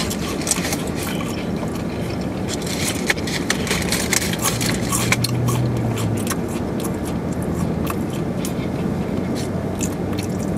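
Eating in a car: chewing fries and a burger with many small crackles of paper food wrappers being handled, over a steady low background hum.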